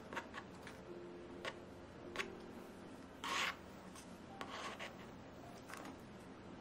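Metal offset spatula scraping and spreading frosting on the sides of a cake: a few short scrapes, then a longer, louder scrape about three seconds in and another a second or so later.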